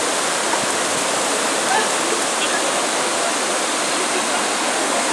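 Shallow river rapids rushing over rocks: a loud, steady, even wash of white water.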